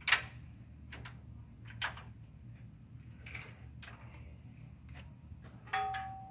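A few sharp metal knocks and clicks from hands working at the deck of a Hustler zero-turn mower on a mesh trailer. The loudest comes right at the start. The last, near the end, leaves a short ringing metal tone.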